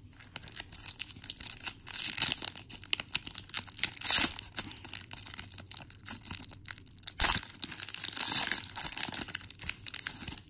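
Pokémon TCG booster pack's foil wrapper crinkling as it is handled and torn open, in a run of sharp rips, the loudest about four seconds in and again about seven seconds in.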